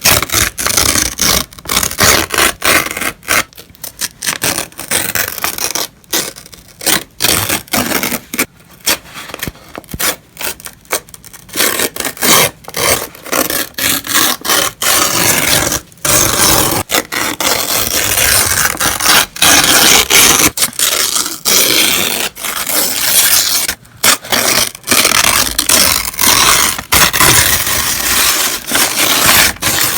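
Paper being torn, one crisp rip after another, some short and some long, with brief pauses between tears.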